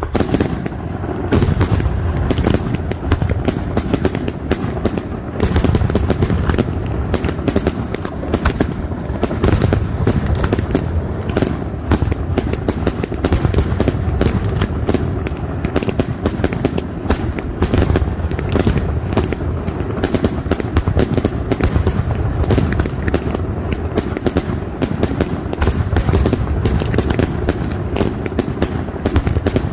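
Castillo aerial fireworks display by Pirotecnia Nadal-Martí: a dense, unbroken barrage of rapid bangs and crackles over a heavy low rumble.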